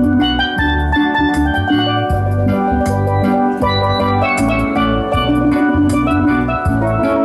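Steel band playing: steel pans carry the melody and chords over a bass line, with drums keeping the beat.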